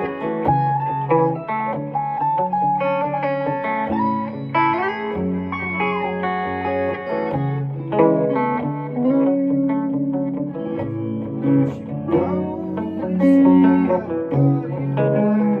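Guitars jamming: a melodic lead line with bent and sliding notes over lower sustained notes.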